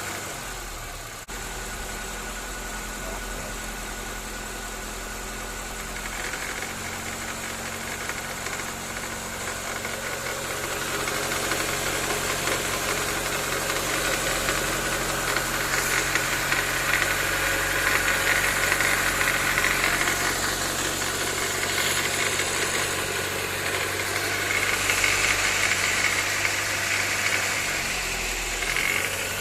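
Honda Civic 1.8 L four-cylinder engine running at low revs, about 1300–1500 rpm, in Drive against the brakes, with a vibrating rattle from the serpentine belt tensioner area. The owner found the cause to be a worn, loose serpentine belt. The sound grows louder about ten seconds in.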